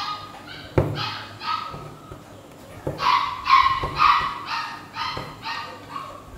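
A dog barking in quick runs, about two barks a second, with the longest run starting about three seconds in. A few sharp taps fall between the barks.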